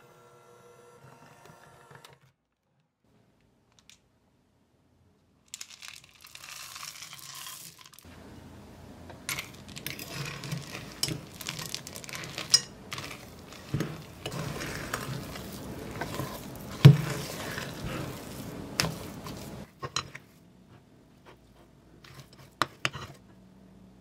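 An electric hand mixer hums for about two seconds and stops. After a pause, a metal spoon stirs thick cookie dough and chocolate chips in a glass bowl, scraping and clinking against the glass with scattered sharp knocks, then a few last taps.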